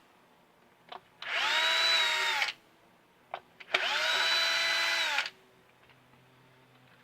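Cordless drill-driver run twice in short bursts, each one whining up to speed and winding down as it stops, with small clicks in between.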